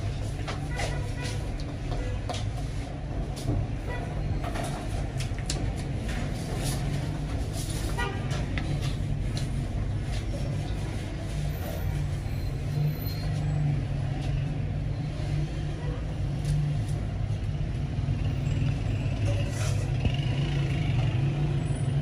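A metal skimmer ladle scraping and clinking against a large cooking pot and plates as rice is scooped out, heard over a steady low rumble.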